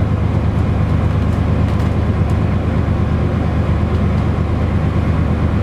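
Steady low drone of an AS1000 diesel railcar's engine and running gear, heard inside the passenger cabin while the train is under way, with a few faint clicks in the first half.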